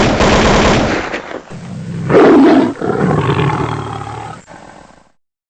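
A loud, deep, animal-like roar that starts abruptly and comes in two swells, the second louder, fading and stopping about five seconds in.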